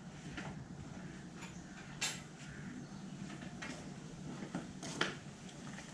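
A few light, scattered clicks and knocks, about six over several seconds, from hands and a tool working on a bicycle to take its wheel off.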